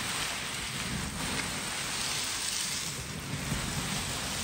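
Steady, dense rattling and rustling of a large heap of unshelled peanuts and popcorn being scooped and mixed by hands.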